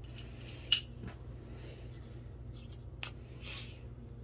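A few light metallic clicks and clinks of the valve body's bolts being handled and set back in their holes on the aluminium Honda B7TA transmission valve body, the sharpest just under a second in, over a steady low hum.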